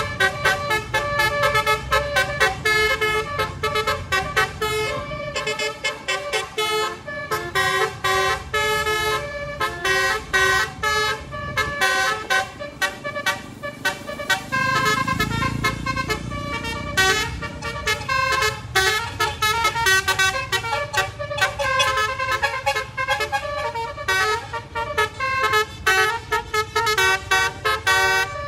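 Bus basuri horn (Indonesian telolet-style musical air horn) playing a fast melody of short, changing notes without a break.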